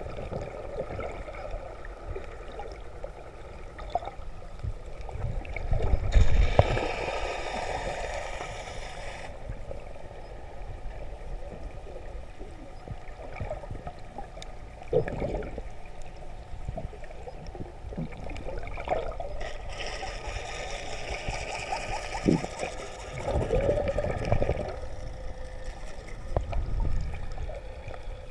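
Water sloshing and gurgling, heard muffled through a camera held underwater just below the surface, with scattered crackles. About six seconds in, and again around twenty seconds, the sound turns brighter and hissier with splashing. The loudest splash comes near six seconds.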